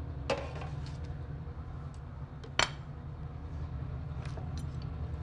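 Kitchen exhaust fan running steadily to clear smoke from searing, with a few clinks and knocks of a plate and a baking sheet being set down on the counter. The loudest, ringing clink comes about two and a half seconds in.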